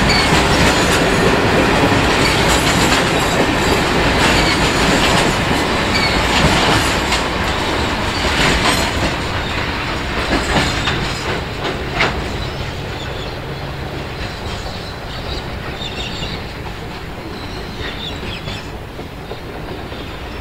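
Grain hopper wagons of a freight train rolling past, wheels clicking over the rail joints with occasional faint wheel squeal. The noise fades from about twelve seconds in as the last wagon moves away.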